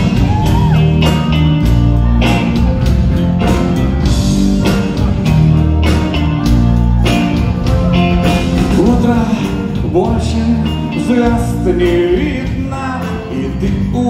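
Live rock band playing a song's intro: guitars, bass and keyboard over a steady beat, amplified through the hall's PA.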